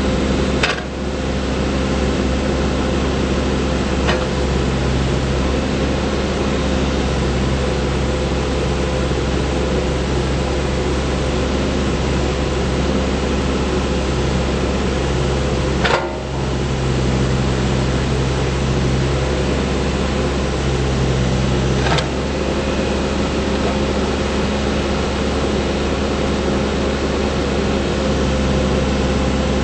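Diesel engine of a Case 580N backhoe loader running at a steady idle, with a sharp click now and then.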